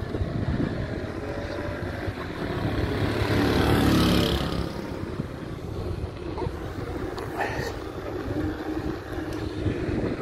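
Wind rushing over the microphone and mountain-bike tyres rolling on asphalt while riding, a steady rumble that swells louder about four seconds in.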